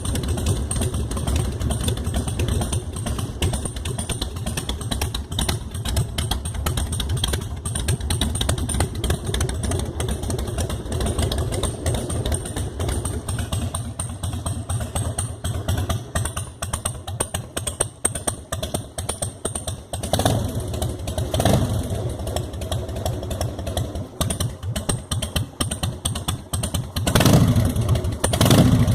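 Carbureted Harley-Davidson Softail 1450 cc Twin Cam 88B V-twin idling with its uneven beat. The throttle is blipped twice about two-thirds of the way through, then revved harder near the end.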